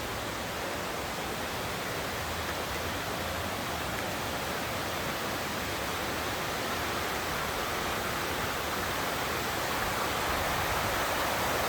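Small mountain waterfall and its stream rushing and splashing steadily, growing slightly louder toward the end.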